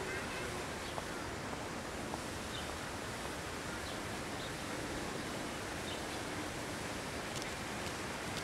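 Steady outdoor ambience, an even hiss-like background noise, with a few faint bird chirps and a couple of light clicks.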